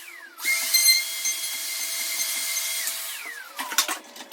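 Router motor spinning up to a high whine, running steadily while routing the strike mortise, then winding down about three seconds in. A few sharp clicks and knocks follow near the end.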